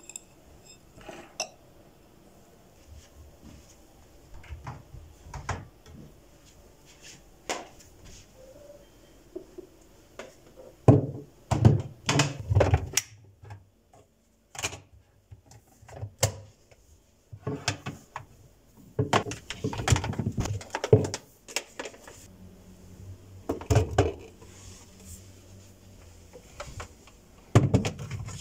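Dishes and kitchen utensils being handled: irregular knocks and clinks, coming in a few dense clusters with quieter gaps between.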